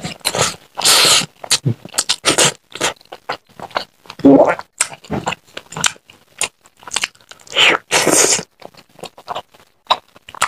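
Close-miked chewing and lip smacking of hand-eaten rice and curry: a dense run of short, irregular wet smacks and crunches.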